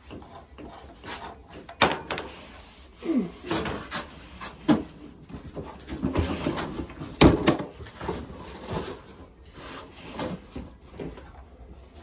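Irregular knocks, clicks and scraping of tools and parts being handled at a gas water heater's control valve, which has been found to be faulty. There is a short falling squeak about three seconds in and a louder knock a little past seven seconds.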